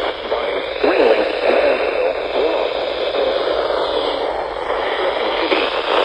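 Portable weather-band radio tuned to a NOAA Weather Radio station, putting out a steady static hiss with a faint, barely intelligible broadcast voice underneath: weak reception.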